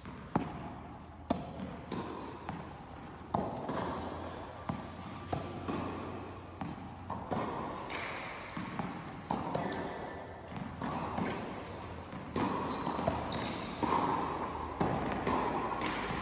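Tennis balls being hit with rackets and bouncing on a hard court during a rally: a string of sharp pops at irregular intervals, each with an echo from the large indoor tennis hall.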